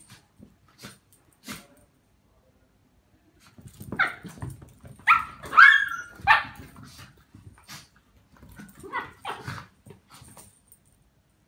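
Tibetan terrier barking playfully while wrestling with a cat, egging it on: a run of short barks about four seconds in and two more near nine seconds, with faint scuffling ticks in between.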